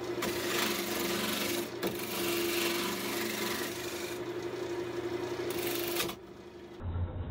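A carbide turning tool cutting a spinning mesquite blank on a wood lathe: a steady hissing scrape over the lathe motor's hum. The cut stops about six seconds in, leaving only the lathe's hum.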